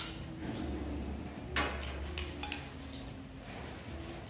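Spoons and dishes clinking during a meal: a few sharp clinks, the loudest about one and a half seconds in, over a low background.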